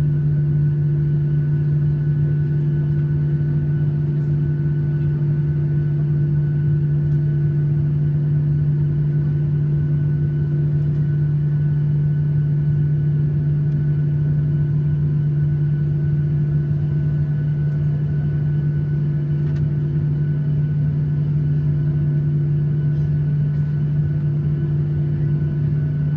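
Steady cabin hum inside a Boeing 737-800 on the ground, its CFM56-7B engines at idle, with a low drone and a few steady tones above it. There is no throttle-up or change in pitch.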